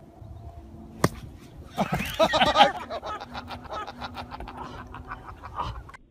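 A golf club strikes the ball with one sharp click about a second in. A loud voice cry follows, then a run of quick laughter-like pulses.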